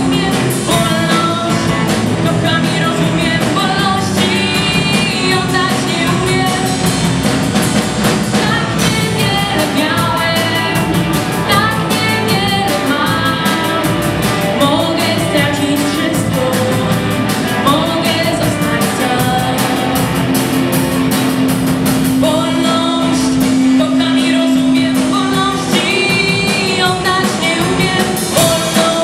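Live amateur rock band playing: a young woman singing into a microphone over electric guitar, bass guitar and a drum kit with cymbals. A long held note sounds for several seconds about two-thirds of the way through.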